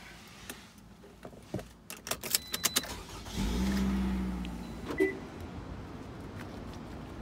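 Car keys jangling and clicking at the ignition, then a steady low whir from the car for about a second and a half, followed by a single sharp knock.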